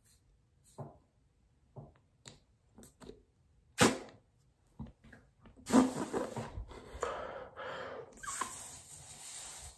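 Person straining to blow up a small rubber balloon: short puffs of breath at first, a sharp hard blow about four seconds in, then a longer stretch of forceful blowing and rushing air from about six seconds on.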